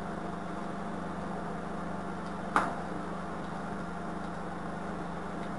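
A single sharp knock about two and a half seconds in: a cast gypsum tile knocking against a hard floor as it is worked out of its silicone mould. Under it runs a steady low hum.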